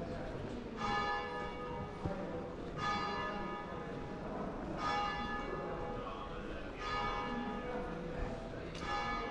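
A single church bell tolling slowly, five strokes about two seconds apart, each ringing on before the next.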